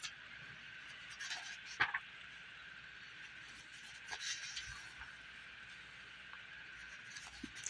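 Pages of a paperback comic being turned and handled: a few soft rustles and taps, clearest about two seconds in and again about four seconds in, over a steady faint hiss.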